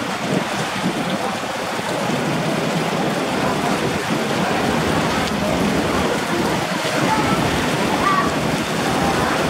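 Steady rushing, splashing noise of harbour water, with no clear engine note.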